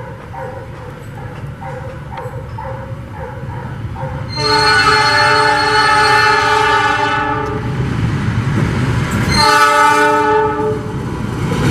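Diesel locomotive passing through a station with a low rumble, sounding its horn twice: a long blast of about three seconds starting about four seconds in, then a shorter blast of about a second near the end.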